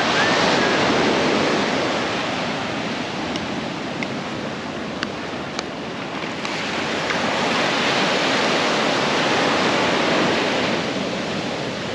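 Ocean surf washing on the shore, a steady rush that swells louder twice, with a few faint clicks midway.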